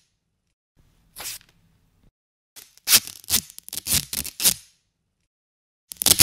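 Packing tape being handled against a nylon puffer jacket. A short scratchy stroke comes about a second in, then a quick run of about seven scratchy rubs, and a louder scratchy burst starts just before the end.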